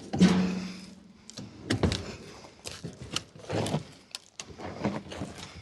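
Nailed timber shipping crate being pulled apart: a creak of about a second as a board is levered off its nails, followed by a series of wooden knocks and clatters about once a second.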